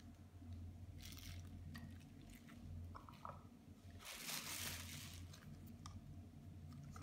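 Faint handling of plastic pasta-maker shaping dies and their packaging: soft clicks and knocks, with a brief crinkly rustle of plastic about four seconds in.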